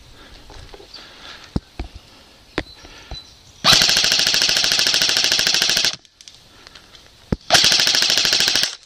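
Airsoft rifle firing two full-auto bursts of rapid, evenly spaced shots: a longer one of about two seconds starting nearly four seconds in, then a shorter one of about a second near the end.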